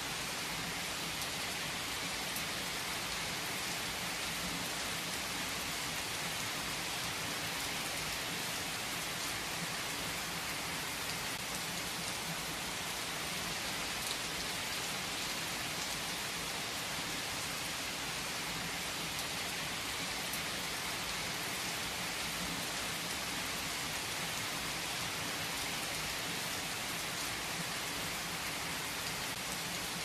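Steady rain ambience: an even hiss of rain with faint scattered drop ticks, unchanging throughout.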